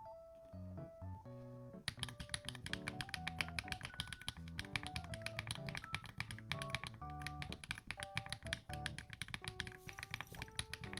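Rapid typing on a mechanical keyboard with 80Retros Game 1989 keycaps, a dense run of key clacks that starts about two seconds in, over background music.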